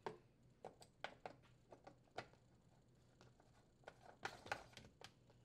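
Faint, irregular plastic clicks and taps as a plastic retaining ring is turned by hand onto a dishwasher fill tank's port through the stainless steel tub wall, with a small cluster of clicks about four seconds in.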